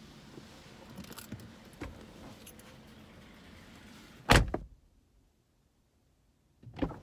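Someone shifting and climbing out of a car seat with small clicks and rustles, then a car door shutting with a single loud thud about four seconds in. The sound then cuts to dead silence, and a sharp click and knock of the door come near the end.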